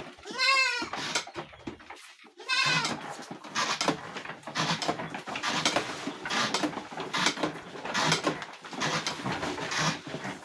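Young goats bleating: a wavering bleat near the start and another about two and a half seconds in, followed by several seconds of uneven rustling noise.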